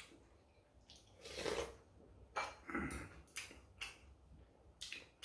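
A person eating close to the microphone: chewing with a full mouth, with a few irregular short clicks and scrapes of a spoon and chopsticks against bowls.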